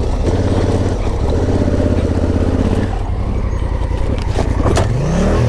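Adventure motorcycle engine running at low speed over a rocky dirt track, a steady chugging rumble. A few sharp knocks come about four and a half seconds in, and the revs rise near the end.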